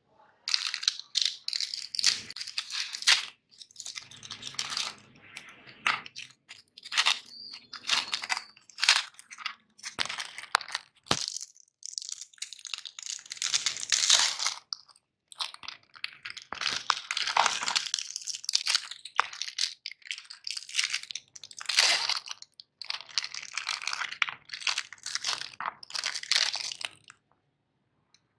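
Foil-lined plastic wrappers of Oreo cookie packets crinkling and tearing as they are opened by hand, in irregular bursts, with a couple of sharp clicks near the middle.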